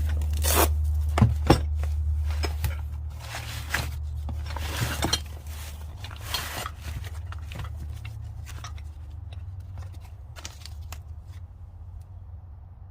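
A wrench set and its packaging being handled: rustling, scrapes and sharp clicks and knocks. The clicks are loudest in the first two seconds and thin out afterwards, over a steady low hum.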